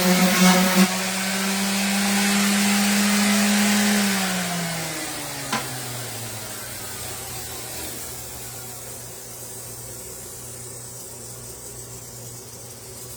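Orbital sander running steadily, then switched off about four seconds in, its pitch falling as it spins down at the end of a sanding pass. A single click comes as it winds down, and a faint low hum is left after it.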